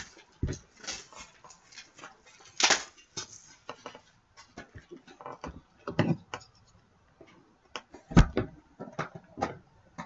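Irregular clicks, knocks and rustles of a sealed hockey card box being opened by hand and its cardboard and packs handled, with a few sharper knocks along the way, the loudest about eight seconds in.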